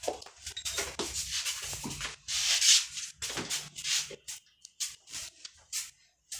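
Hands rubbing over bare, moisturised skin in a light shoulder massage: irregular rubbing strokes, the loudest a longer hissing rub about two seconds in.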